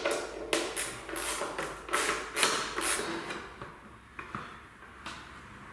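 Clicks, knocks and rustling from the rear fender of an electric chopper scooter being worked loose and handled. The noises are busiest for the first three seconds, then thin out to a few faint ticks.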